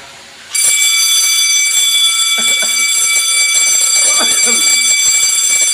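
Fire alarm bell ringing continuously and loudly, set off by a smoke detector under test. It starts about half a second in and holds steady.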